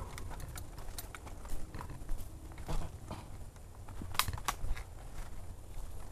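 Hurried footsteps crunching along a dirt forest trail strewn with dry leaves, with irregular crunches and clicks. Two sharper clicks come close together about four seconds in.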